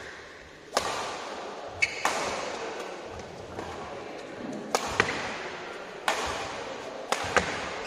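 Badminton rally: rackets hitting the shuttlecock back and forth, a sharp crack about every second, each with a short echo.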